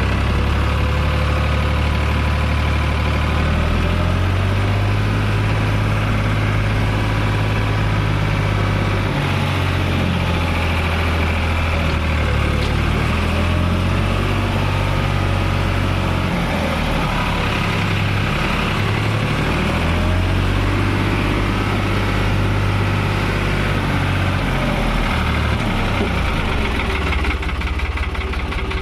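Tractor's diesel engine running steadily, its low note dipping and shifting a few times as the engine speed changes.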